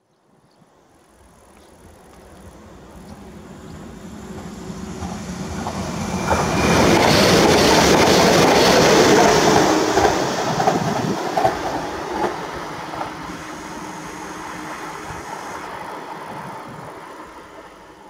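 Newag Impuls II electric multiple unit running along the track, its wheels rumbling and clattering over the rails. It grows louder as it draws near, is loudest about seven to ten seconds in, then dies away.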